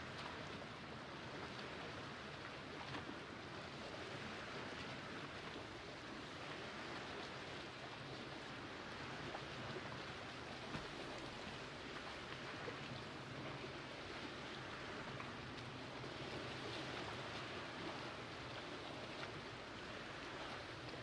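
Faint, steady lapping of small waves against the shoreline boulders of a calm lake.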